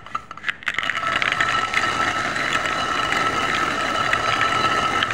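Hand-turned stone quern (chakki) grinding whole mung beans into split dal: a few clicks as the stone gets going, then a steady stone-on-stone grinding with a thin high whine, stopping abruptly at the end.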